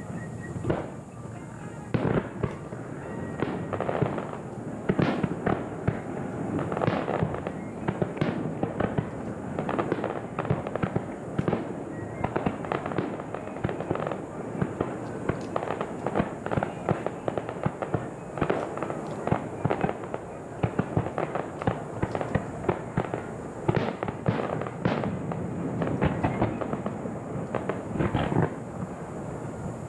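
Aerial fireworks shells bursting in quick, irregular succession: many sharp bangs with crackle between them.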